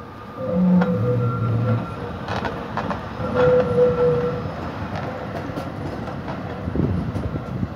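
Vienna type E2 tram with a c5 trailer passing close by on a curve: steel wheels running on the rails with repeated clicks over the rail joints. A thin squeal from the wheels in the curve comes and goes, and a short low two-note tone sounds about a second in.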